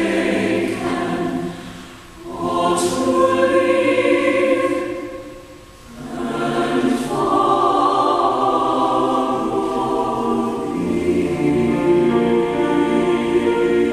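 Mixed SATB choir singing sustained chords in a hymn anthem, with piano accompaniment. The sound dips briefly between phrases about two and six seconds in, with sung 's' consonants at phrase starts.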